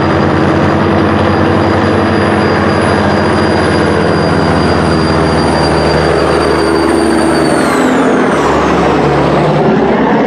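Lumber-loaded semi trucks' diesel engines pulling hard in a drag race, a loud steady drone with a high whine above it. About eight seconds in the whine drops in pitch as a truck passes close by.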